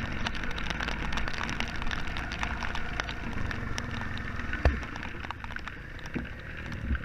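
Rain pattering in many small ticks over the low running of a Honda Fourtrax ATV engine, with a single thump about four and a half seconds in.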